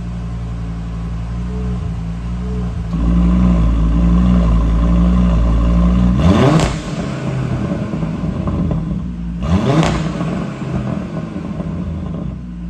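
2023 Audi RS3 8Y's turbocharged 2.5-litre inline five-cylinder engine running through an AWE SwitchPath cat-back exhaust. It idles, gets louder about three seconds in, then gives two quick throttle blips about six and nine and a half seconds in, each rising sharply in pitch and dropping back to idle.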